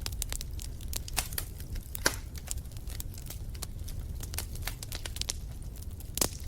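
Wood fire in a fireplace crackling: irregular sharp pops and snaps over a low steady rumble of the flames, with louder pops about two seconds in and near the end.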